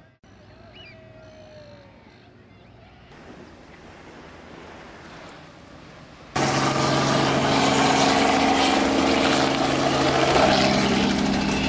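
A faint background at first. About six seconds in, the loud, steady engine and rotor sound of a small helicopter cuts in, its tone shifting lower near the end as it flies past.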